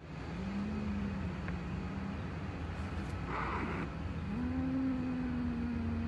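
A calico cat guarding a caught pigeon growls low and long, twice, with a short hiss between the growls, over a steady low rumble.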